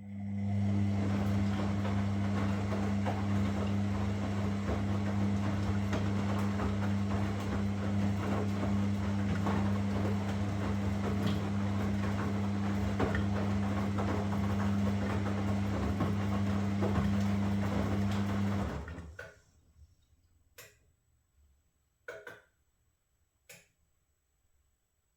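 Washing machine running with a steady low hum and a rushing noise, cutting off abruptly about nineteen seconds in, followed by three sharp clicks.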